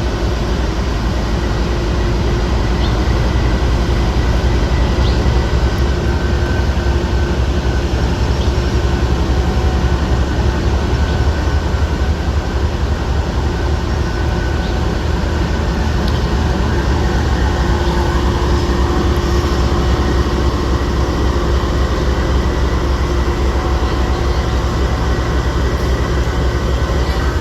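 Railcar train running, a steady low rumble with faint steady tones above it.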